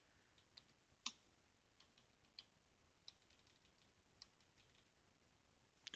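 Faint, scattered keystrokes on a computer keyboard as a short terminal command is typed: about seven single taps spread roughly a second apart, the loudest about a second in.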